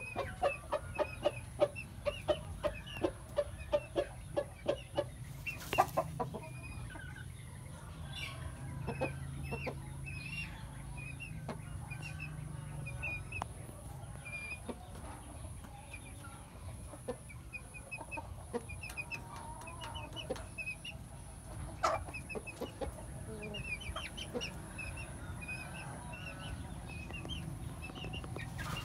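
Cuban game rooster clucking, a quick run of low clucks about three a second for the first five seconds, then sparser. High short chirps of other birds come and go throughout, and there is a sharp click about six seconds in and another a little past twenty seconds.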